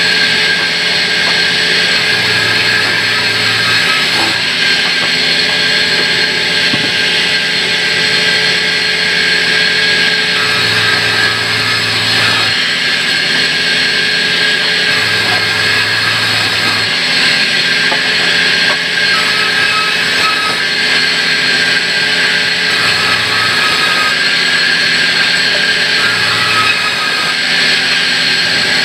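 Large vertical band sawmill running steadily with a constant high tone, and a deeper hum that comes and goes about five times.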